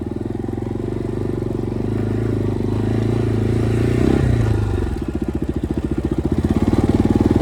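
Bajaj Pulsar NS125 single-cylinder engine running, with a brief rise in revs about four seconds in, then revved harder and getting louder toward the end.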